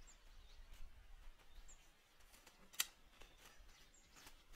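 Near-silent outdoor ambience with a faint, short, high bird chirp repeated about every two seconds. A single sharp click comes a little before three seconds in, with a few fainter clicks near the end.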